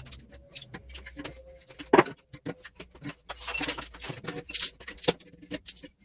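Irregular metallic clinks, knocks and scraping as scrap HVAC coils are worked by hand to strip the sheet metal off them, with one louder knock about two seconds in and a longer scrape in the middle.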